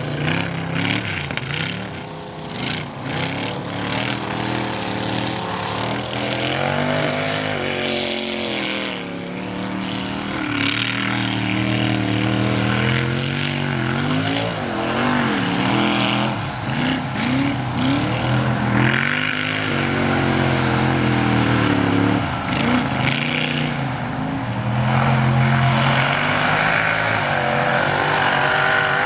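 Mud truck's engine revving hard under load. Its pitch climbs and drops again and again.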